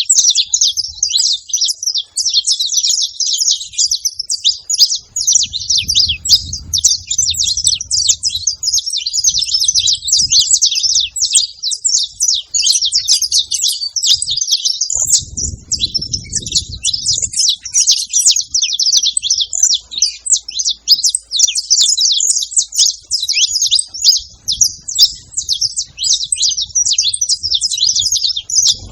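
A group of saffron finches chirping and singing together in a dense, unbroken chatter of high, overlapping notes. A few faint low rumbles come in underneath now and then.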